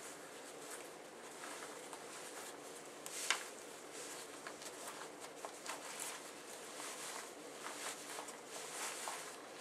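Faint rustling of a Marmot Aegis waterproof shell jacket's hood and collar being handled while its cinch cords are looked for, with one short sharp tick a little over three seconds in.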